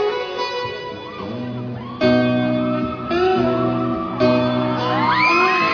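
Guitar playing through a hall PA: picked notes, then full chords struck about once a second and left to ring. Near the end, several high voices scream over it, rising and falling.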